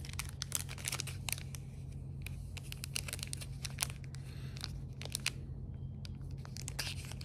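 Plastic lure packaging being crinkled and torn at by hand in a struggle to get it open: scattered sharp crackles and rips, over a steady low hum.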